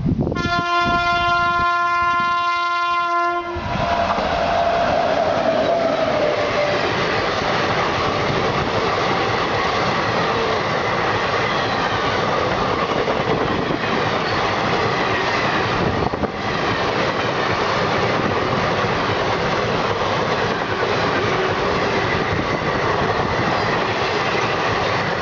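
WAP7 electric locomotive's horn sounding one long blast of about three seconds, then the locomotive and its express passenger coaches rushing past at high speed, with a steady loud roar of wheels on rail that dips briefly midway.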